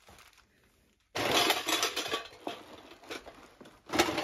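Heap of empty metal trading-card tins, cardboard boxes and pack wrappers being kicked and trampled, clattering, clinking and crinkling. The noise starts suddenly about a second in.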